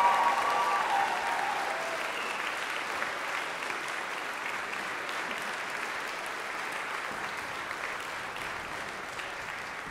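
Audience applause for an orchestra, a dense even clapping that slowly dies down. A few held pitched sounds fade out in the first second and a half.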